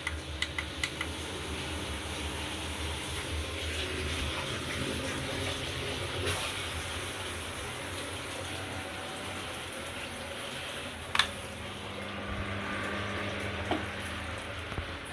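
Ceiling fan running: a steady whoosh of moving air over a low motor hum, with a few light ticks at the start and one sharp click about 11 seconds in.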